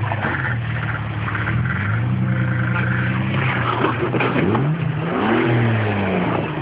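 Jeep engine running at low revs while rock crawling, its pitch rising about four and a half seconds in and then easing back down.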